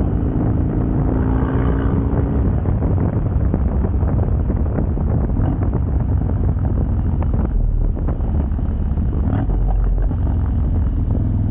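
Harley-Davidson Dyna's Twin Cam 88 V-twin running while the bike is ridden along, with wind rushing over the microphone.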